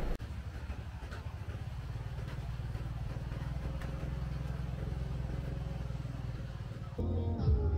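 Motor vehicle engine running steadily with a low, even rumble; near the end it gives way abruptly to background music.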